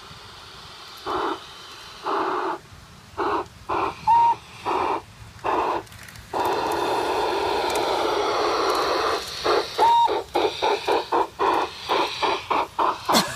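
A G-scale LGB garden-railway steam locomotive's sound module playing steam chuffs through its small speaker. The chuffs are spaced at first, then come faster toward the end. A steady hiss of steam runs for a few seconds in the middle, and there are two brief high beeps.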